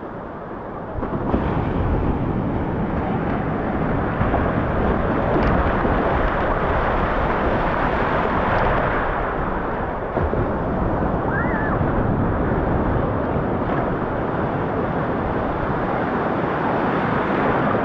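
Ocean surf breaking and washing in, with wind buffeting the microphone. The rush grows louder about a second in and stays loud.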